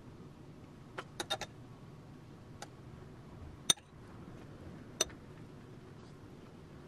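Scattered sharp clicks and taps from kitchenware being handled: a quick run of about four about a second in, a faint tap, the loudest single click just past the middle, and one more a second later, over a low steady room hum.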